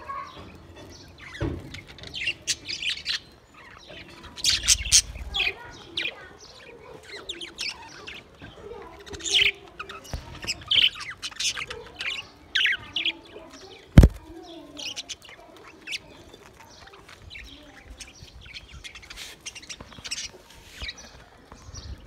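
A flock of budgerigars chirping and chattering in many short, high calls, with one sharp knock about two-thirds of the way through.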